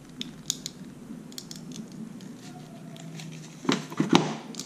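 A screwdriver poking and prying at a piezo speaker inside a Wi-Fi power outlet's case to pop it out: scattered small clicks and scrapes, then a louder cluster of knocks and scrapes near the end.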